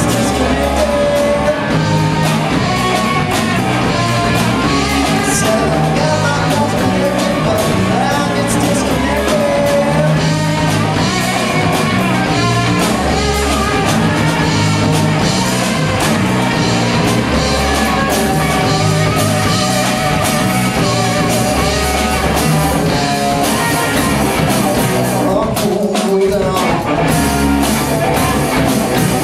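Live rock band playing loud and steady: electric guitar, electric bass and drum kit, with a short drop-out in the bass and drums near the end.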